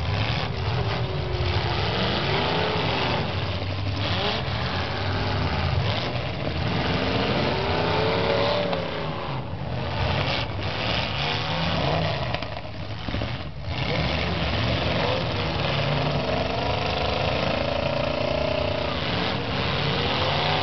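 Several demolition derby cars' engines revving up and down together, loud and continuous, the pitch rising and falling again and again as the cars push and ram in the mud.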